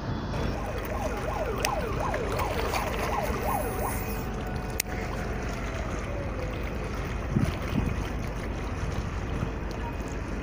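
A distant siren wailing in quick rising-and-falling sweeps for about three seconds over a steady low rumble of wind and water, with one sharp click about five seconds in.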